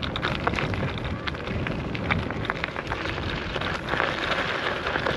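Wind rushing over the microphone and tyre noise from a Nami Klima electric scooter on the move: a steady rush full of small crackles.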